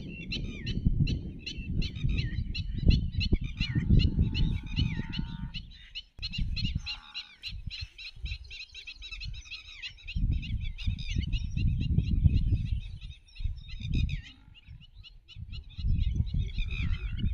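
Many birds chattering at once: quick, harsh chirps overlap without pause. Gusts of low rumble come and go beneath them.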